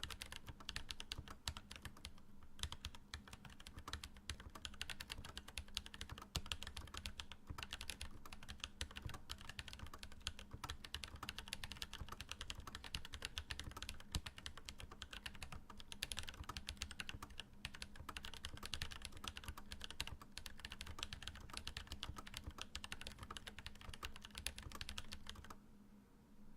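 Fast, continuous typing on a Pearl 40% mechanical keyboard fitted with lubed Holy Panda tactile switches and GMK doubleshot ABS keycaps: a dense run of keystroke clacks that stops near the end.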